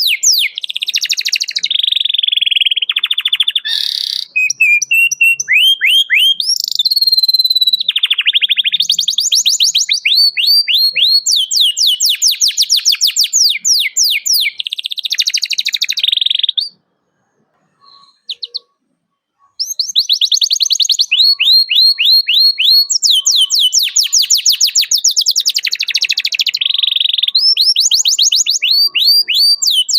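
Domestic canary singing: fast trills of rapid down-sweeping chirps, one phrase after another, broken by a pause of about three seconds just past the middle.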